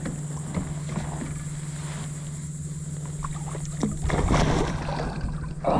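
Large tarpon being hauled into a fishing kayak: scattered knocks and water noise at the hull, with a louder burst of splashing and thrashing about four seconds in.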